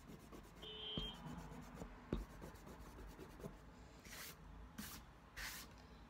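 Rubber eraser rubbing on drawing paper, erasing pencil guide lines, with three short, brisker strokes near the end.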